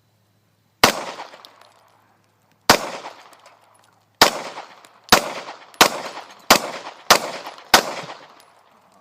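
Eight gunshots from a single firearm, each ringing out and echoing after it: two spaced about two seconds apart, then six fired faster, about two-thirds of a second apart. The shooter is emptying the magazine.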